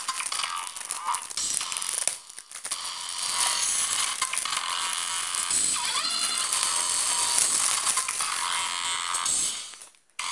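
Cellophane shrink wrap on a plastic DVD case crinkling and crackling as the case is rubbed and turned over in the hand, with a short pause a couple of seconds in.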